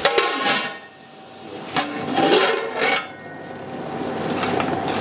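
A metal lid clanks onto a hammered copper karahi and rings briefly. Clatter and scraping follow in the middle, then chicken and tomatoes sizzle in ghee as a wooden spatula stirs them, the sizzle building toward the end.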